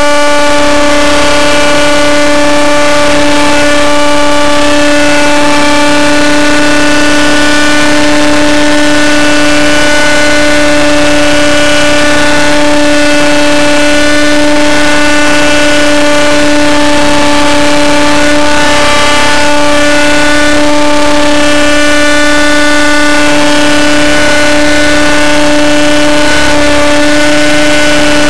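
Scale Long Ranger RC helicopter's engine and rotor running loud at a steady, high-pitched whine, the pitch holding almost constant in low flight.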